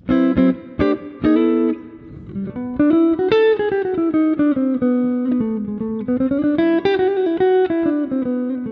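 Electric guitar played through a Mooer GE200 amp-modelling multi-effects unit: plucked chords near the start, then a melody whose notes move up and down in pitch.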